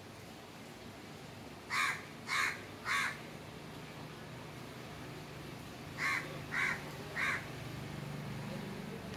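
A bird cawing: two runs of three short calls, each run spread over about a second.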